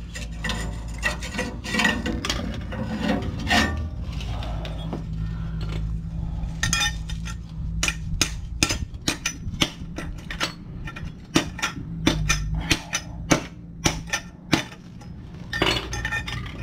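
Metal clinking and knocking from a ratchet wrench and a loosened exhaust clamp being worked off a rusted exhaust pipe at the muffler inlet: a quick run of clinks at first, then scattered single clinks.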